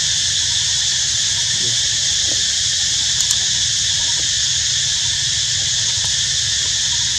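Steady high-pitched insect chorus, unbroken, with a low rumble underneath and a couple of faint clicks about three seconds in.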